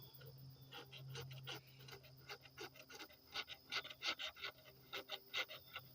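Scratch-off lottery ticket being scratched: a quick, irregular run of short scraping strokes.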